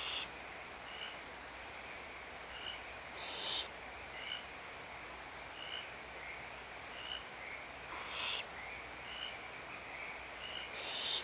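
Barn owls giving harsh, hissing screech calls, four rasping bursts of about half a second each spaced a few seconds apart, over a steady background hiss.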